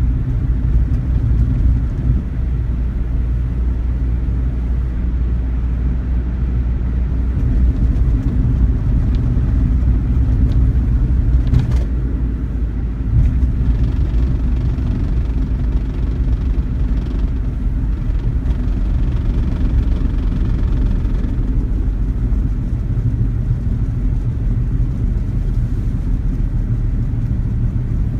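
Suzuki Wagon R Stingray (MH34S) driving, a steady low engine and road rumble. A couple of brief knocks come near the middle.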